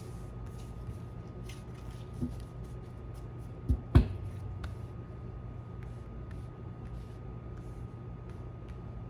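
Oracle cards being handled and laid out on a table: faint ticks and rustles, a soft knock about two seconds in and two louder thumps close together around four seconds in, over a steady low hum.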